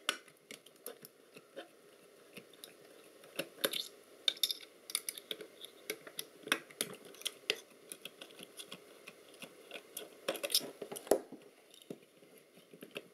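A hand tool clicking and scraping on a metal assembly as a part is worked loose: irregular small clicks, some in quick clusters, with a brief denser flurry about ten seconds in.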